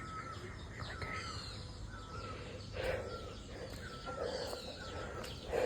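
Birds calling: a short chirp repeated about once a second, higher quick twitters, and three harsher calls in the second half.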